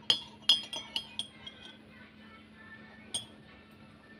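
Ceramic tableware clinking: a quick run of about six sharp clinks in the first second and a half, then a single clink about three seconds in.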